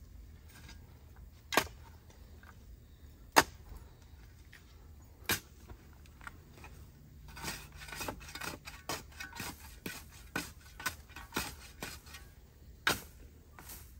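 Shovel digging and scraping in soil: a few sharp strikes of the blade about two seconds apart, then a run of quicker scrapes and clicks, and one more strike near the end.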